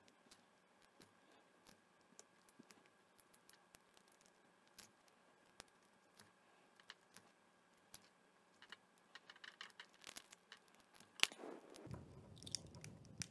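Faint, scattered clicks of a plastic spudger prying a glued-down battery out of a Zune MP3 player's case. There is a sharper click about eleven seconds in, and fuller handling noise near the end as the battery comes loose.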